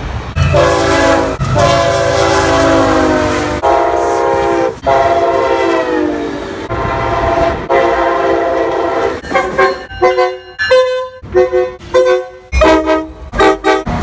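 Multi-note locomotive air horns sounding long chord blasts, some falling in pitch as the train goes by, then from about nine seconds in a quick run of short toots.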